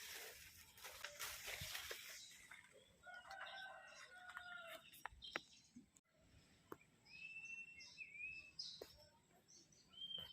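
Faint rooster crowing once, one long call about three seconds in, followed later by a short high bird call, with a few sharp clicks and a rustle at the start.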